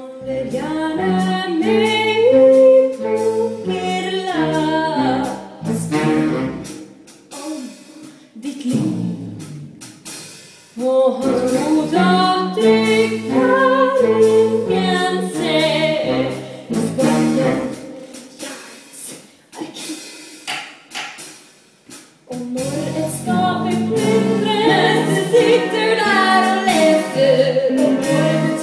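A musical-theatre song performed live: female voices singing with band accompaniment. It drops to quieter passages twice before coming back in full.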